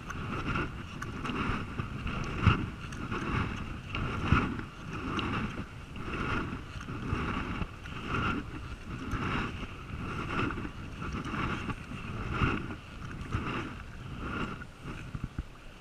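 Sea kayak paddle strokes: the double-bladed paddle dipping and pulling through the water in a steady rhythm, about one stroke a second, each with a splash.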